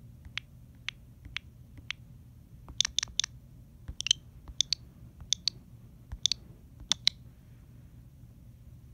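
A series of short, sharp clicks: four evenly spaced single clicks about half a second apart, then louder clicks, mostly in quick pairs and a triplet, until about seven seconds in.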